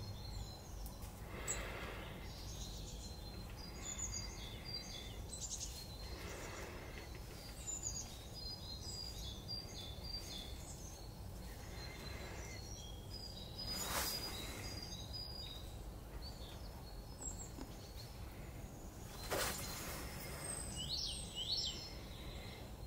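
Small woodland birds chirping and calling on and off over a steady low background rumble, with two sharp cracks in the second half.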